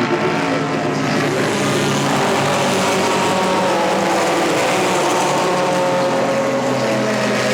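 Racing car engine running hard at speed on a circuit, a loud, steady engine note over a continuous hiss.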